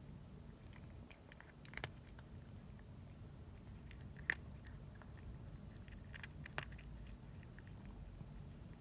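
A cat chewing dry cat biscuits: faint, irregular crunches, with three sharper crunches spread across the stretch.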